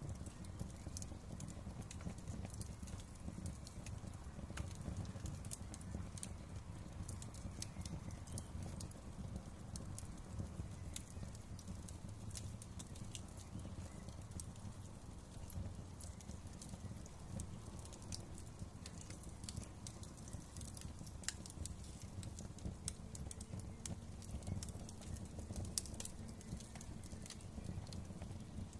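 Wood fire crackling in a fireplace: a steady low rumble of burning with frequent small sharp pops and snaps scattered irregularly.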